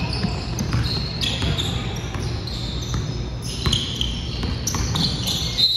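Basketball sneakers squeaking in short, high-pitched chirps on a hardwood court, with a basketball being dribbled.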